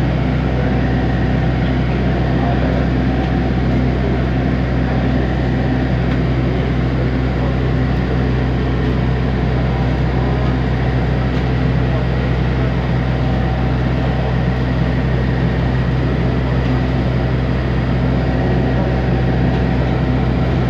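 Steady engine drone and rolling noise heard from inside a vehicle moving slowly across an airport apron, with an unchanging low hum and no breaks.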